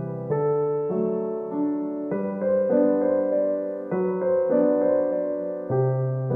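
Background piano music: soft held chords and a slow melody, a new note or chord every half second to a second.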